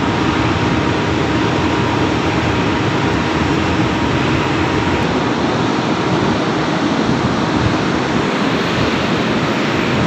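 Heavy industrial plant machinery running steadily: an even, loud wash of noise with a faint steady hum in it.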